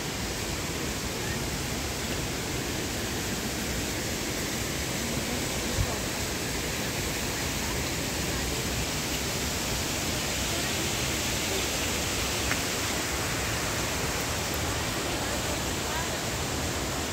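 Steady, even rushing noise, with one brief knock about six seconds in.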